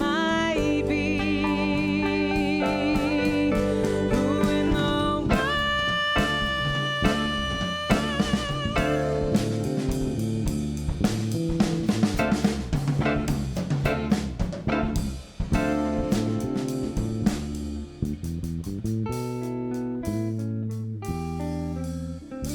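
Live band playing an instrumental passage with no singing: long held lead notes with vibrato over bass and keyboard chords, then busier drum-kit hits with snare and cymbals, the music thinning out near the end.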